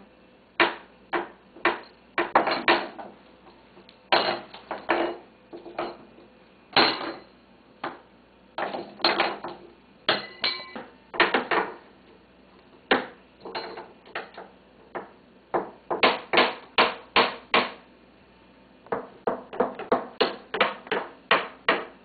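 African grey parrot banging a spoon: clattering knocks, some single and some in quick clusters, settling into an even run of about three a second near the end.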